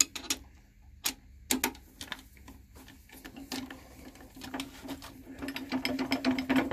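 Rapid mechanical clicking and ticking of metal wood-lathe parts worked by hand at the chuck and mandrel. A few separate sharp clicks come first, then from about halfway a fast, dense run of ticks that grows louder toward the end.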